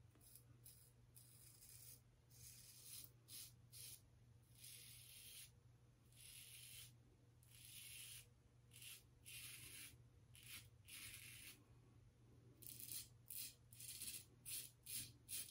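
Double-edge safety razor scraping through two days of stubble in short, faint, raspy strokes, coming faster over the last few seconds. The razor is a feather-light 3D printed plastic three-piece with a thin blade, which makes the cut noisy, like cutting through barbed wire.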